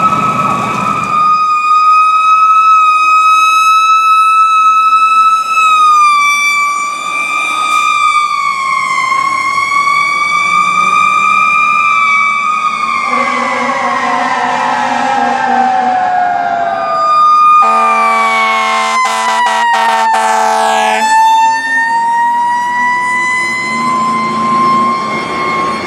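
Fire engine sirens wailing, their pitch slowly drifting, falling away and then climbing again. Short air horn blasts come in about two-thirds of the way through.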